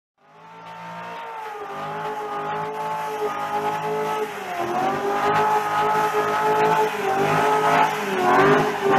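Chevrolet Corvette V8 held at high revs in a burnout, rear tyres spinning and squealing. It fades in over the first second or so and keeps getting louder, a steady high note that dips in pitch briefly twice.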